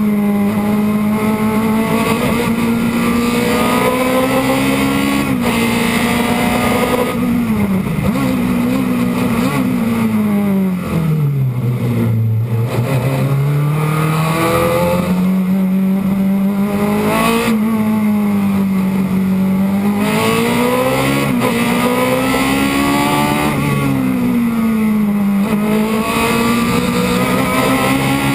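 Osella PA9/90 sports-prototype racing engine heard onboard at full racing effort, revving up through the gears with quick upshifts. About halfway through the revs fall deeply as the car slows and downshifts, then climb again as it pulls hard up the road.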